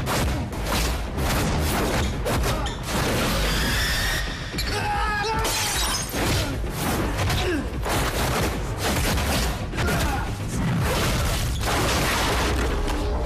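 Movie fight-scene sound effects: a rapid, continuous run of punch and body-impact hits and crashes, over music.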